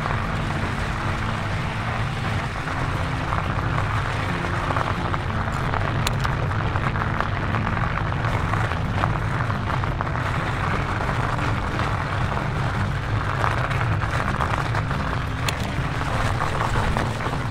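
Steady rushing noise of a fat bike riding over an icy, packed-snow road: tyre and wind noise, with a few sharp clicks about six, nine and fifteen seconds in.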